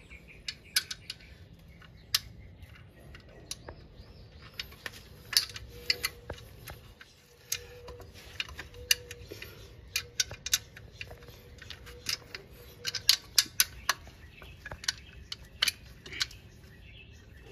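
Irregular small clicks and taps of a clip-on brake caliper cover being worked onto a car's brake caliper by hand, its short mounting screw being started. Quick clusters of clicks come about two thirds of the way in and again near the end.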